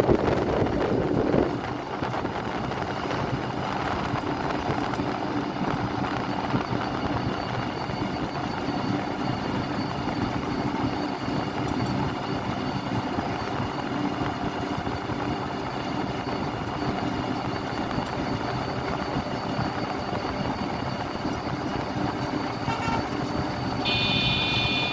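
Steady road traffic: the continuous hum of engines and tyres from passing vehicles, with a louder vehicle passing at the start that drops away about a second and a half in. Near the end, a high, steady, many-toned sound begins.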